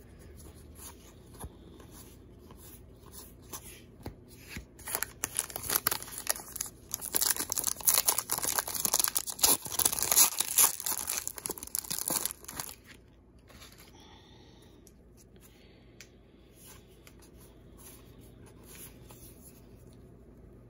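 A Panini Hometown Heroes baseball card pack wrapper being torn open and crinkled by hand: a run of loud crackling and tearing starts about four seconds in and lasts some eight seconds, then drops to faint rustling as the cards are handled.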